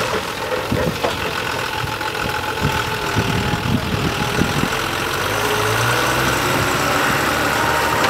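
Diesel engine of a forest-service fire tanker truck running steadily as it drives off across rough ground, with a deeper steady hum setting in about five seconds in.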